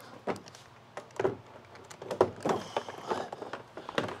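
Irregular knocks and clunks of a small outboard motor's housing and cowl as the loose motor is handled and tipped over to drain its oil, about seven in all.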